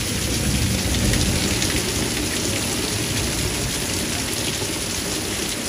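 Torrential rain pouring down and splashing on paving and puddles in a thunderstorm, a dense steady hiss, with a low rumble underneath that is strongest in the first two seconds.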